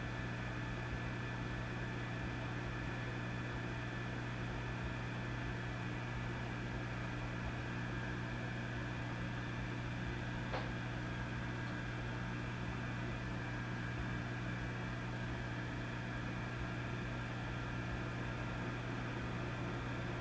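Vintage tube amplifier idling with a steady low mains hum and its overtones under a constant hiss. A single faint click comes about halfway through.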